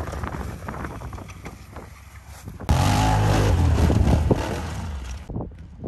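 ATV engine running as the quad pulls away through snow. About three seconds in it jumps to much louder revving that swings up and down in pitch under load as the quad climbs a steep snow pile, then cuts off suddenly near the end.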